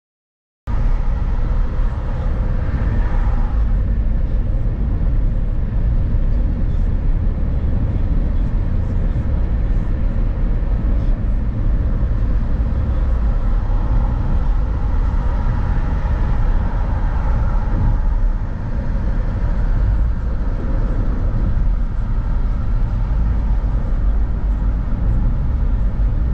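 Steady low rumble of road and engine noise from a moving vehicle, heard from inside.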